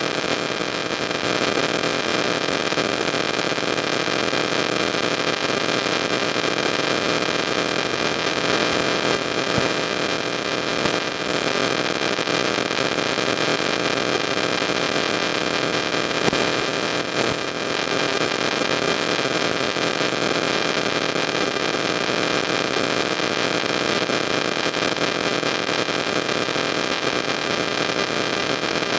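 Steady static-like hiss with a few faint constant tones mixed in, with no change in level.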